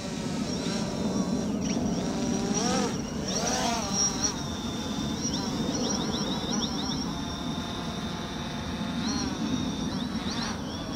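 A DJI Phantom 4 Pro quadcopter's propellers buzzing with a steady high whine. Its pitch rises and falls as the motors change speed, most markedly about three seconds in and again near the end.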